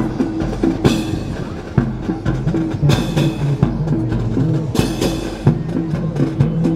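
Music with drums and sharp, wood-block-like percussive knocks keeping a steady beat, under sustained pitched notes.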